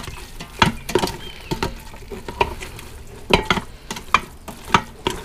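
A spoon stirring macaroni and cheese with meatballs in an electric pressure cooker's stainless steel inner pot: irregular knocks and scrapes of the spoon against the pot, about two a second.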